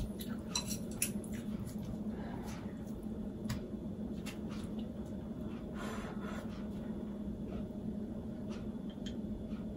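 Scattered soft clicks of wooden chopsticks against a frying pan and quiet eating sounds as pieces of bean sprout pancake are picked apart and eaten, over a steady low hum.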